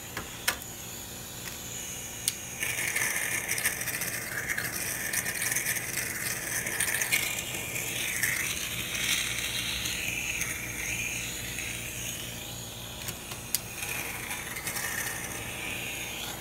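M-Vac wet-vacuum DNA collector running, its sampling head spraying buffer solution onto a rough rock and sucking the liquid and air back up. A steady hiss that grows stronger about three seconds in and wavers as the head moves over the stone, over a low steady hum, with a few sharp clicks.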